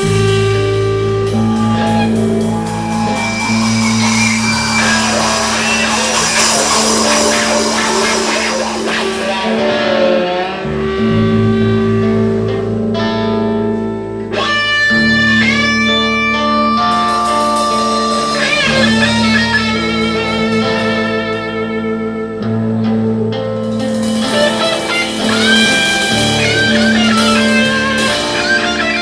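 Live rock band playing an instrumental passage: a guitar lead of held notes that bend and waver, over a steady bass line.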